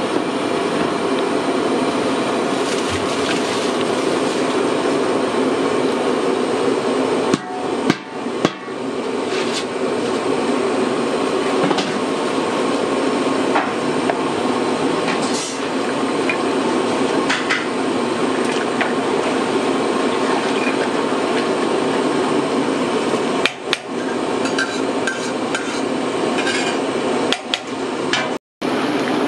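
Large aluminium biryani pot boiling hard over a gas burner: a loud, steady rushing noise. Irregular metallic knocks of the ladle against the pot are heard now and then.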